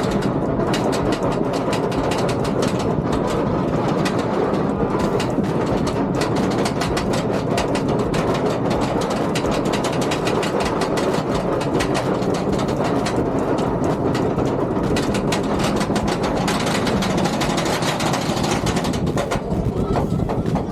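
Roller coaster train running on its track, heard from on board: a steady rumble with dense rattling clicks.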